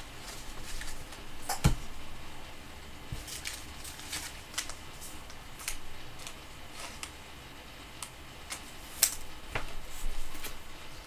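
Trading cards being handled at a table: scattered soft clicks and taps, with a couple of sharper ones.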